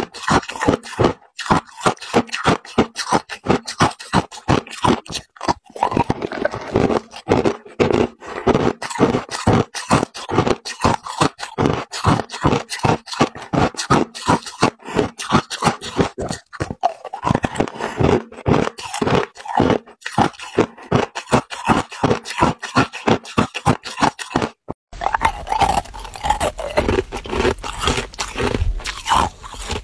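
Hard, clear ice cubes bitten and crunched between the teeth, about three sharp crunches a second. About 25 seconds in the sound changes abruptly to a fuller crunching with a low rumble.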